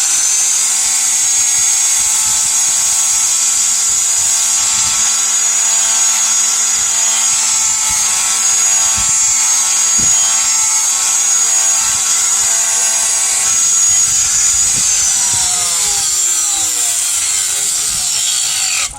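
Electric grinder running steadily at full speed with a high whine, then switched off about fifteen seconds in and winding down to a stop over several seconds.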